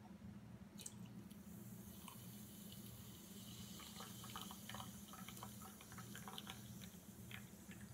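Sparkling water from a can and red Gatorade from a bottle poured together into a glass: a faint liquid trickle with fizzing that sets in about a second in, and small popping and dripping ticks.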